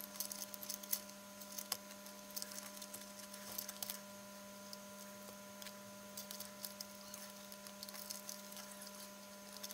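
Small plastic clicks and taps of a ribbon cable connector being worked into its socket on a TV's main circuit board, with the cables rustling as they are handled. A steady low hum runs underneath.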